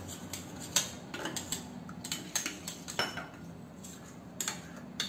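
Steel spoon stirring spiced water in a small steel bowl, clinking against the bowl in quick irregular taps; one strike rings briefly about three seconds in.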